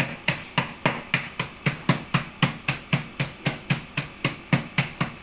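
Rapid, even knocking, about four sharp knocks a second, of ice-cream toppings being pounded by hand to break them up.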